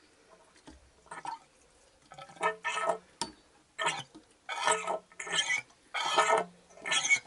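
Old fork oil and air spluttering out of a Yamaha XJ900S Diversion front fork leg as the stanchion is pumped up and down over a funnel. The gurgling spurts come in a steady rhythm, about one every 0.7 s, louder from about two seconds in. The oil is old and needs changing.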